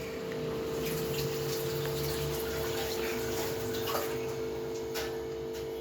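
Kitchen gas stove being lit: a steady rushing hiss from the burner with a few light clicks, over a constant background hum.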